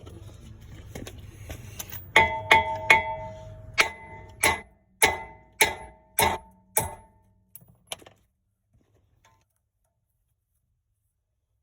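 Hammer striking steel on the brake rotor assembly to break a seized, rusted fixing free: about ten sharp metallic blows in quick succession, the first few ringing with a clear bell-like tone, stopping about eight seconds in.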